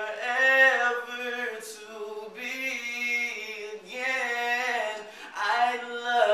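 A single voice singing unaccompanied, holding notes in phrases of a second or two with short breaks between them.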